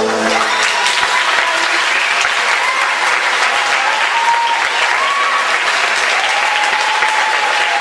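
Audience applauding steadily, a dense patter of many hands clapping, with a few long wavering high calls sounding over it.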